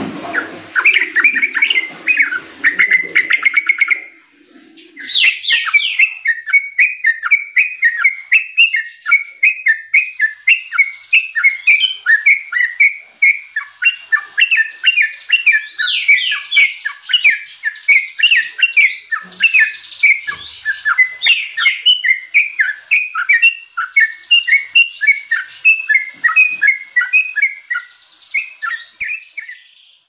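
Yellow-vented bulbul singing a long, fast run of short sliding chattering notes, with a brief pause about four seconds in.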